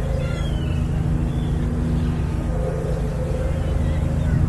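Passenger ferry's engine running with a steady low drone, heard on board.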